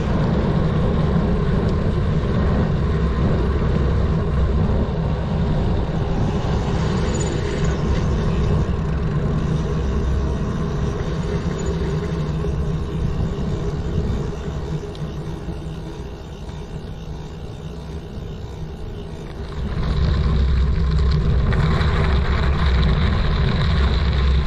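Steady low rumble of wind on the microphone and tyres rolling during a bicycle ride. It drops for about five seconds after the middle, then comes back up.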